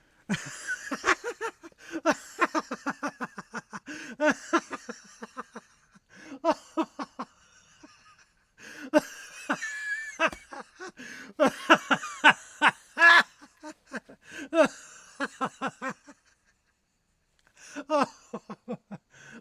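A man laughing hard in several long bouts of quick ha-ha pulses, about five a second, with a short silence before a last bout near the end.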